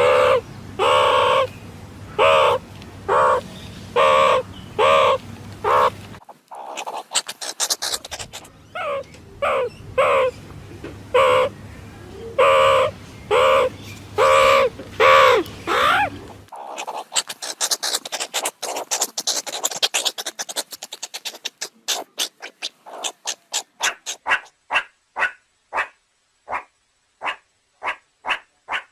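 Meerkat calls: a run of short, harsh barking calls about two a second, some with a falling pitch, then a spell of fast high-pitched twittering chatter, then a steady series of short sharp chirps toward the end.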